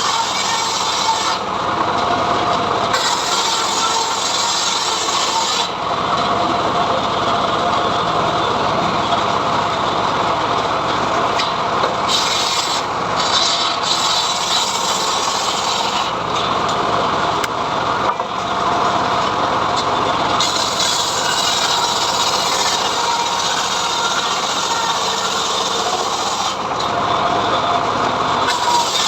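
Homemade engine-driven sawmill cutting through a mahogany log: a loud, continuous sawing noise over the running engine.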